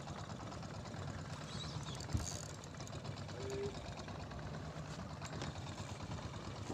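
Fishing boat's engine idling with a steady low hum, with a single knock about two seconds in.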